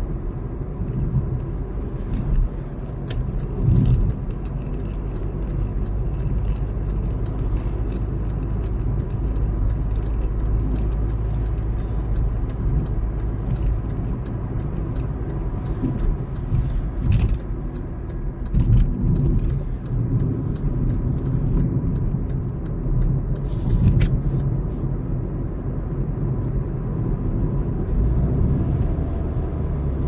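Steady engine and road rumble heard inside the cabin of a moving vehicle, with a few brief clicks and rattles about halfway through and again near the end.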